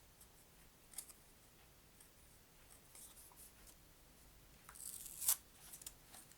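Plastic card sleeve crinkling and tearing as game cards are taken out of it. There is a single click about a second in, and the loudest crinkle comes about five seconds in.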